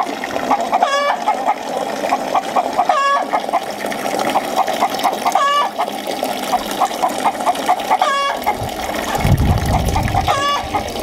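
A flock of backyard chickens clucking continuously, with one louder call repeating every two to three seconds over the steady clucking. A brief low rumble comes about nine seconds in.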